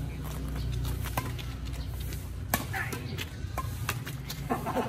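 Badminton rally: a shuttlecock struck back and forth by rackets, a series of sharp pops, the loudest about halfway through, over a steady low city hum.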